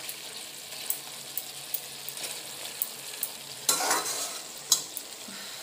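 Pork and brinjal sizzling in a wok while a spatula stirs them, the spatula scraping and clicking against the pan every second or so, with a longer scrape about four seconds in.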